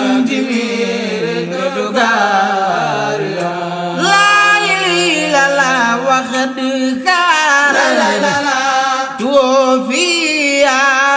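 Islamic devotional chanting in Arabic: a voice draws out long, wavering melodic lines over a steady lower held note.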